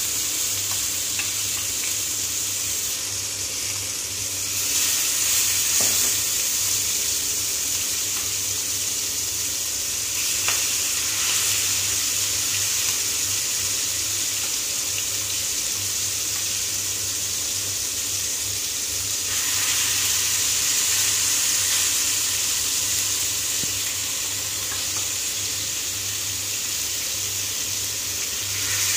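Marinated chicken pieces frying in hot oil in a nonstick pan: a steady sizzle. It swells louder about five seconds in and again around twenty seconds in.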